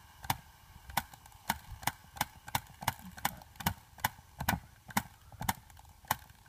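Vintage 1987 Tomy wind-up tabletop game clicking as it plays: a run of sharp plastic clicks, about two to three a second and slightly uneven.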